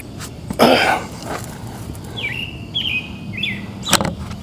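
A bird chirping outdoors: three short, quick calls in a row. A brief rustle comes about half a second in, and a single sharp click near the end.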